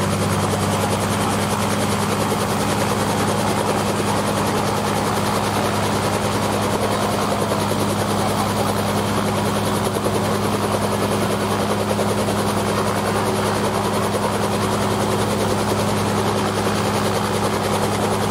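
Helicopter running steadily: a constant loud hum with two strong low tones and a fast, even pulsing from the rotor.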